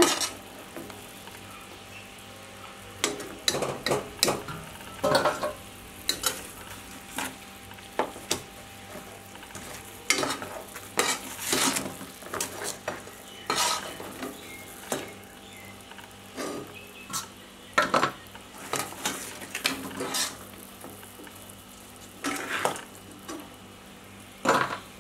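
Oil sizzling steadily in a kadai as pastries deep-fry, with a metal skimmer scraping and clinking against the pan at irregular moments as the pieces are turned and lifted out.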